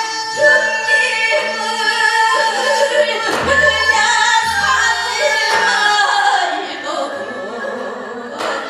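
Gyeonggi-style Korean folk singing (hwimori japga): voices holding long, wavering notes, with a few sharp strikes.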